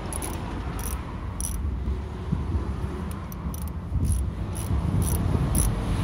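A socket ratchet clicking in short, uneven ticks, about two a second, while a hex-bit bolt is undone, over a steady low rumble.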